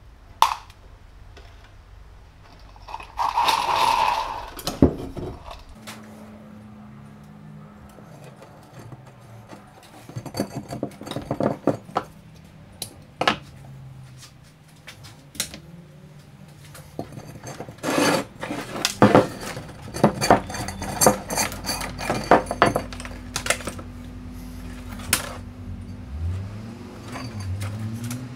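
Metal parts and hand tools clinking and knocking on a workbench: a long irregular series of sharp taps and clicks, with a low hum underneath from about six seconds in.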